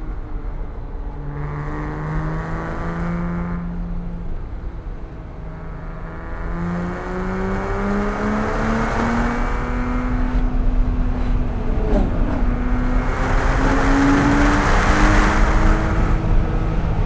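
Porsche 987.1 Cayman S's 3.4-litre flat-six engine under way: the engine note dips, then climbs steadily for several seconds as the car accelerates, getting louder and harsher near the end, with a brief click about twelve seconds in.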